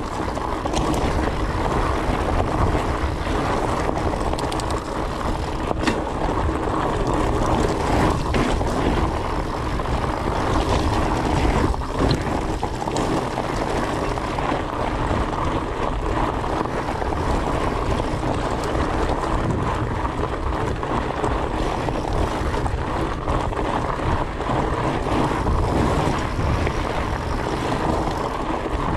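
Fat bike's 4.8-inch-wide tyres rolling over rocky desert singletrack, with steady wind rush over the microphone and scattered clicks and rattles of gravel and the bike.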